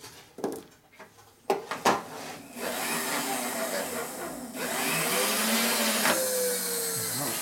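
A few sharp taps of a soft-faced mallet on an aluminum bracket clamped in a milling-machine vise, knocking it into line against a dial indicator. About two and a half seconds in, a steady machine noise starts, with a wavering tone in it, and grows louder about two seconds later.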